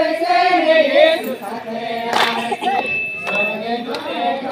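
Voices singing together in an Adivasi Christian garba devotional song, with long held notes that waver in pitch.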